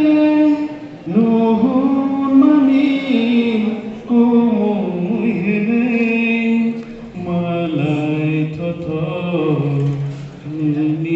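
Voices singing a slow, chant-like song with long held notes; the melody drops lower about seven seconds in.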